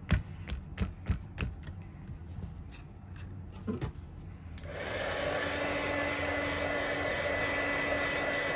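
A few sharp taps and paper handling noises, then about halfway through an electric drying tool switches on and runs with a steady blowing hiss and a faint motor whine, drying freshly inked watercolour paper.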